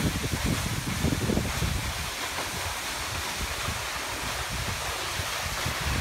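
Steady rushing of Pinaisara Falls, a tall waterfall plunging onto boulders into a pool, with wind buffeting the microphone for about the first two seconds.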